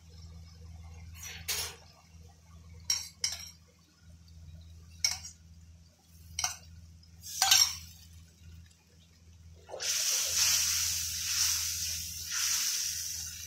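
Sharp clinks of metal utensils against the wok and bowl, a handful of single strikes. About ten seconds in, liquid poured into the hot wok sets off a loud hiss and sizzle lasting a few seconds, over a low steady hum.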